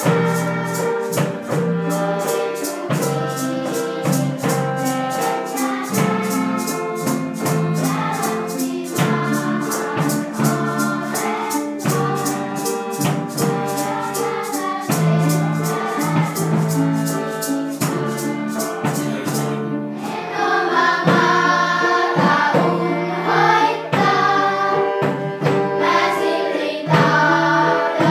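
Music: a choir singing over an instrumental accompaniment, with a steady ticking percussion beat. The ticking stops about twenty seconds in and the singing carries on.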